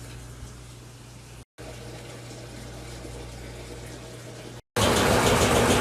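Steady rushing noise over a low hum, cut off briefly twice, then much louder for the last second.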